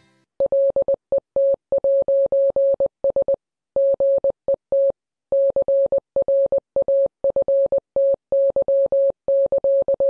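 Morse code played as a steady mid-pitched electronic beep, keyed on and off in short dits and longer dahs, with a couple of longer pauses between words.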